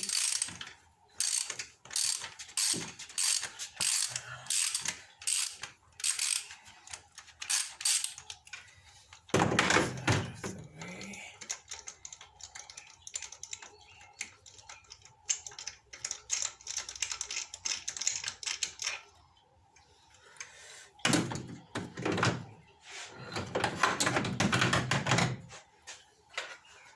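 A hand ratchet with a spark plug socket clicking in repeated runs as it turns, unscrewing a spark plug from the engine.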